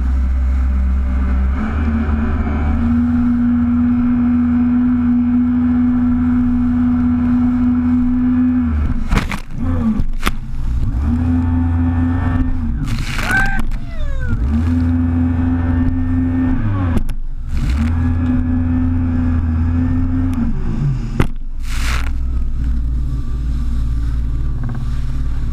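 Jet ski engine running hard at a steady high note that drops away and comes back four or five times as the craft rides over waves, with sharp splashes or knocks of water against the hull.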